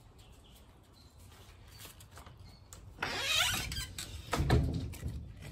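A brief rustle about three seconds in, then a few low bumps, over a quiet background.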